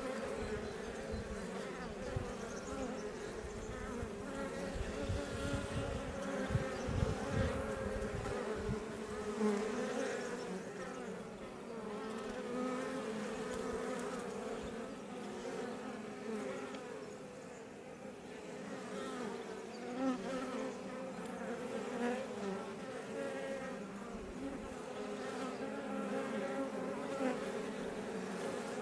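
Many Iberian honey bees buzzing around a Langstroth hive: a steady hum of overlapping wingbeats, with low thumps through roughly the first third.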